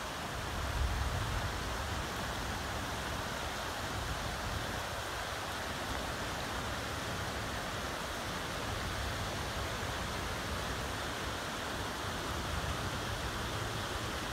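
Floodwater rushing steadily over a flooded road and field, a continuous even noise of fast-moving water.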